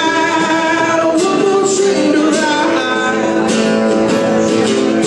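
Acoustic guitars strummed in a steady rhythm while a man sings into a microphone: a live acoustic song.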